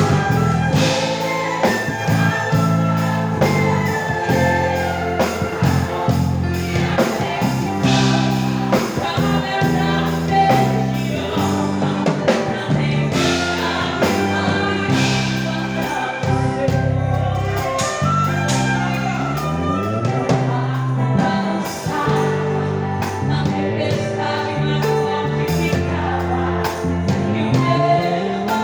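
Gospel hymn sung by a group of voices over a band with bass and drums, keeping a steady beat.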